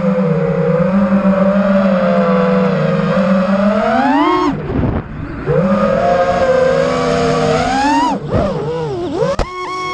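5-inch FPV freestyle quadcopter's brushless motors whining, the pitch rising and falling with the throttle. The whine climbs and nearly cuts out about four and a half seconds in, then returns. Near the end it swoops quickly up and down in short throttle punches, with a sharp click.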